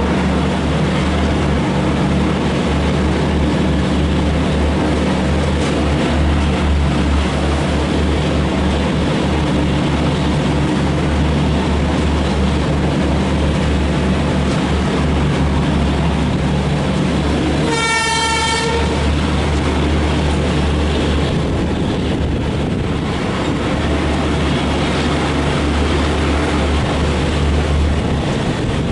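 Trivandrum Rajdhani Express, hauled by a WAP5 electric locomotive, running through at speed: a steady rumble of wheels on rails. One short train-horn blast sounds about 18 seconds in.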